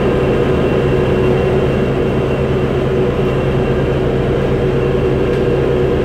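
City bus running, heard from inside the passenger cabin: a steady engine and drivetrain drone with several held tones over it, unchanging throughout.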